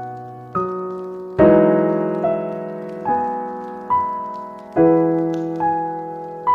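Slow, gentle piano music: a new note or chord is struck about every second and rings out, fading until the next. Faint crackles of a fireplace tick underneath.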